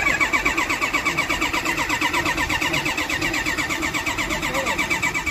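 Electric starter cranking a UD Nissan V8 diesel truck engine: a steady whirring with a fast, even pulse of compression strokes that does not rise in pitch, then cuts off abruptly near the end.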